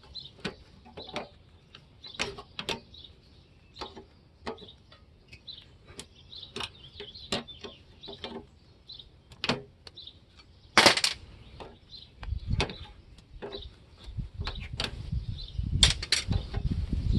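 Hand nippers snipping and snapping through an air conditioner's scrap coil, a string of irregular sharp metallic clicks with one louder clack about eleven seconds in. Low rumbling handling noise runs under the last few seconds as the metal is worked loose.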